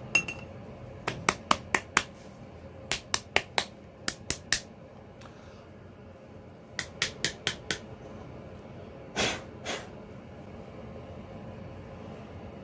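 A small metalworking hammer tapping on metal in quick runs of three to five light, sharp strikes, with a pause between runs. Two duller, longer knocks follow a little past the middle.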